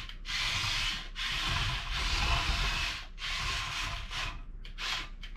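Small remote-control toy dump truck running in spurts of about a second, with short gaps and quicker bursts near the end, as it is worked from the remote.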